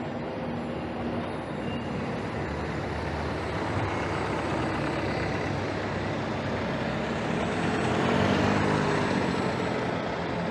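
Street traffic with a large motor vehicle's engine passing close, loudest about eight seconds in, over a steady wash of road noise.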